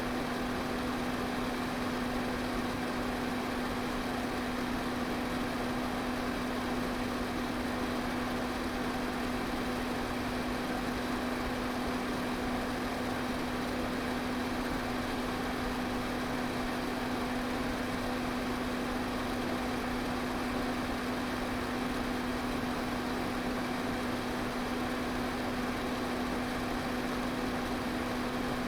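Electric fan running steadily: an even rush of air with a steady low motor hum under it.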